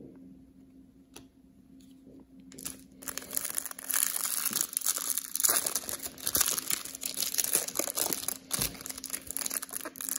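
A foil trading-card pack wrapper being torn open and crinkled by hand. The crinkling starts about two and a half seconds in and keeps going in dense, uneven rustles.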